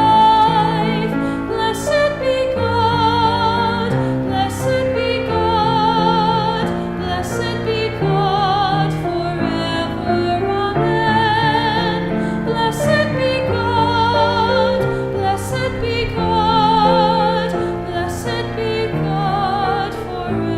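An offertory hymn: a singer holds long notes with vibrato over sustained instrumental accompaniment.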